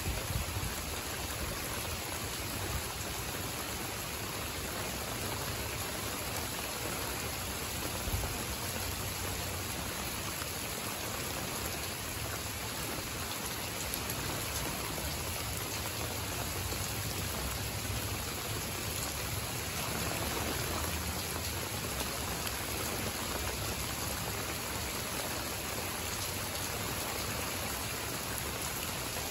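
Steady rain falling, an even hiss with a couple of louder drop hits.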